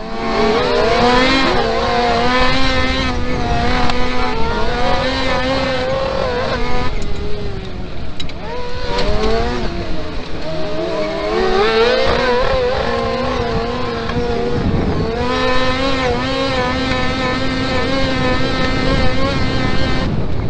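Kart-cross buggy's engine heard from onboard, held at high revs through the race, rising as it accelerates near the start and again around the middle, with short drops where it eases off, over a steady rumble from the dirt track.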